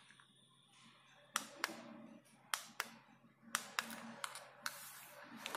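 Push button on a plastic LED string-light controller box being clicked repeatedly to step through the lighting modes: about nine short sharp clicks, several in quick pairs.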